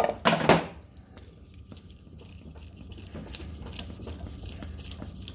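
Two short handling noises about half a second apart, then a low steady hum with faint small ticks.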